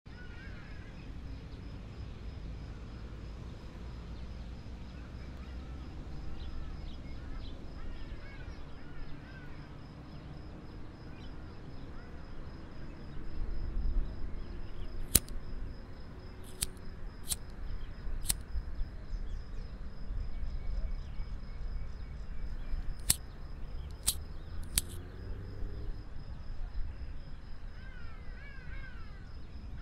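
Outdoor ambience with a steady wind rumble and birds calling now and then. Starting about halfway in, a string of sharp metallic clanks comes from footsteps on a steel stairway with grated steps.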